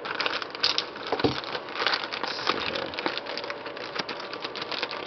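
Plastic mailing bag crinkling and rustling as it is cut and pulled open by hand, with irregular crackles and small sharp ticks.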